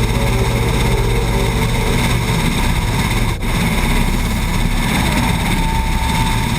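Eurocopter AS332 C1 Super Puma twin-turbine helicopter running loud and steady, its rotor beat mixed with turbine whine, with a brief dropout about three and a half seconds in.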